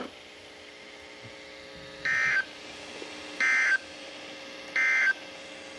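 Three short bursts of warbling digital data tones from a NOAA Weather Radio broadcast, about a second and a half apart. They are the EAS/SAME end-of-message code that closes the Required Weekly Test. Faint steady receiver hum and hiss lie underneath.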